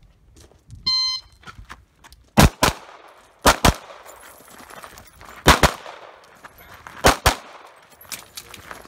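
An electronic shot timer beeps once, about a second in, then a Tanfoglio Stock II pistol fires four quick pairs of shots, a double tap on each target.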